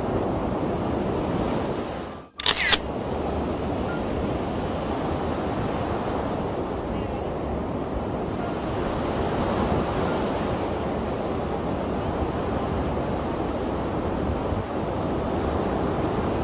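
Ocean surf breaking on a sandy beach: a steady rushing wash of waves. About two seconds in, the sound drops out for a moment, then a short sharp click follows.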